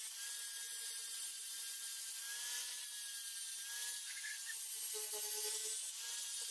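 Angle grinder with an abrasive disc running steadily against a steel knife blade, grinding off rust: a constant whine over a grinding hiss.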